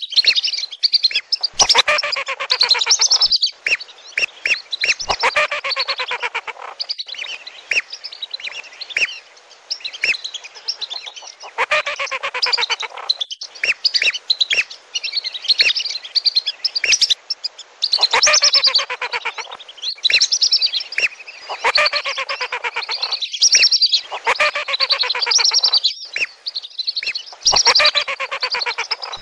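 A flock of whistling ducks calling: rapid, high whistled notes in noisy bursts of a few seconds, with short lulls between them. It is a lure call for lesser and wandering whistling ducks.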